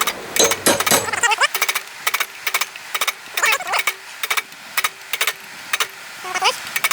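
Quick, light hammer blows ringing on steel, often in pairs or triples, as lines are struck into the hot trunk of a railroad spike elephant-head knife on the anvil.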